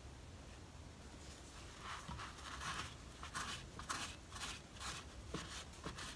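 A cloth shop rag scrubbing the front face of a power brake booster, wiping off leaked brake fluid: quick, faint rubbing strokes, about three a second, starting about two seconds in.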